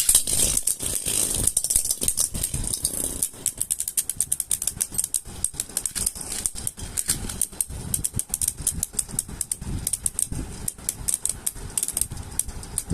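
Beyblade Burst spinning tops, World Spriggan among them, rattling and clicking as they spin and knock against each other in a plastic battle stadium. The rapid clicking starts suddenly at the beginning and goes on without a break.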